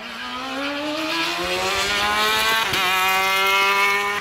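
Hill-climb race car's engine accelerating hard, its pitch rising steadily until an upshift about two and a half seconds in, then climbing again to another shift at the very end.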